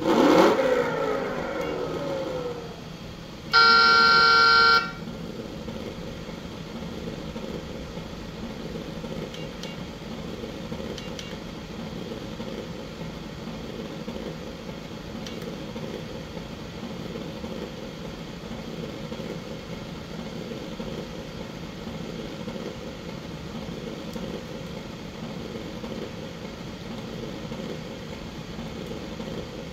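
RC crawler sound module playing simulated vehicle sounds through a small speaker. A loud rev falls away at the start, then a horn toots once for about a second, about four seconds in. After that a steady simulated engine idle hums on.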